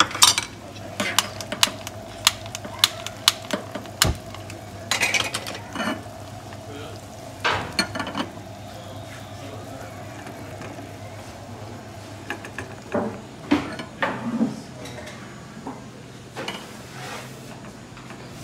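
Butter with red pepper flakes heating and beginning to sizzle and foam in a small stainless steel saucepan on a gas burner. A metal spoon clinks against the pan in a run of quick taps during the first few seconds, with scattered knocks and scrapes later.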